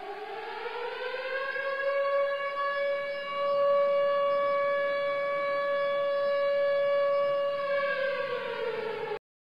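Siren wailing. It rises in pitch for about the first second and a half, holds one steady tone, then falls and cuts off abruptly near the end. This is the 09:05 siren of 10 November that marks the moment of Atatürk's death.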